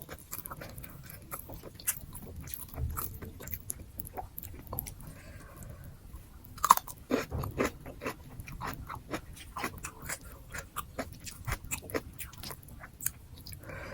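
A person chewing and biting nasi gila (Indonesian spicy fried rice), with many small wet, crunchy clicks close to the microphone and one sharp, louder click about halfway through.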